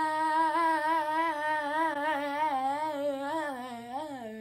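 A girl's voice holding one long open-mouthed 'aah' note, wavering in pitch, then sliding lower about four seconds in.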